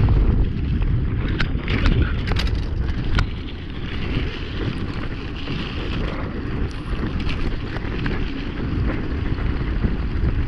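Wind rushing over an action camera's microphone and mountain-bike tyres rolling on a rough concrete road during a fast downhill run at about 30 km/h, with several sharp clicks and rattles from the bike about one and a half to three seconds in.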